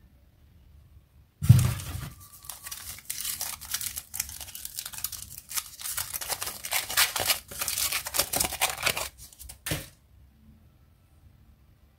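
Toy packaging being torn open and crinkled by hand. It starts with a thump about a second and a half in, runs as a rapid string of rips and rustles, and stops abruptly near the end.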